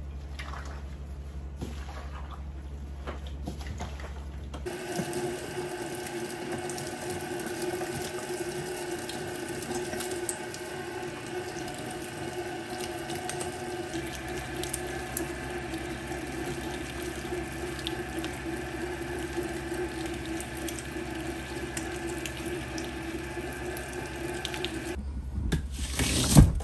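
Electric meat grinder starting about five seconds in and running steadily as it grinds deboned venison. Near the end comes a loud chop as a wall-mounted lever vegetable chopper is pulled down through an onion.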